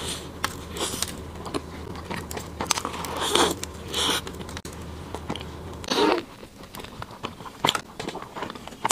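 Close-miked eating sounds: biting into and chewing a cream puff with a flaky pastry shell, with crackly crunches and soft mouth sounds, a few louder crunches along the way.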